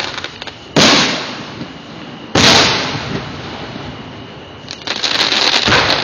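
Aerial fireworks shells bursting: two loud booms about a second and a half apart, each trailing off, then a quick run of crackling pops near the end.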